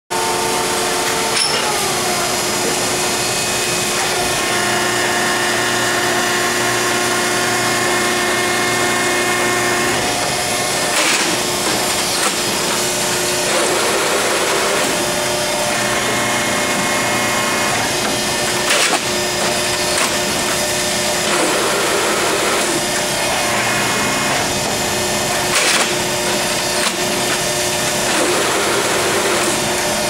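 Logemann 345-AT two-ram baler's hydraulic system running loudly under load, a steady pump whine whose pitch shifts a couple of times. A few sharp metallic clanks ring out over the noise.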